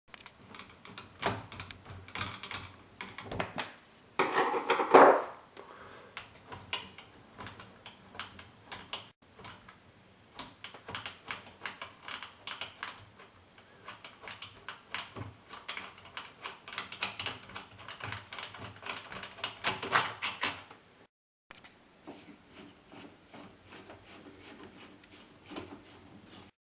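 Bolts being unscrewed from a uPVC door handle and the handle worked loose: many small metallic clicks and rattles, with a louder scraping clunk about five seconds in.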